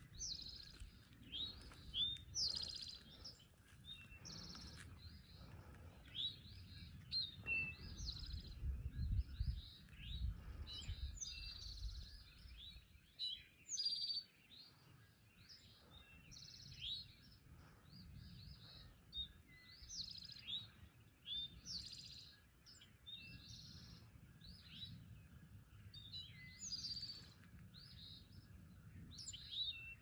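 Songbirds singing in a dawn chorus: many short chirps and whistled phrases overlapping throughout, with a low rumble partway through.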